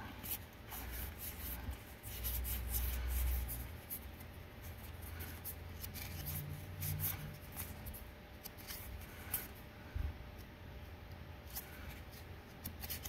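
Trading cards being handled and slid against one another, with quiet, scattered clicks and rustles over a low steady hum.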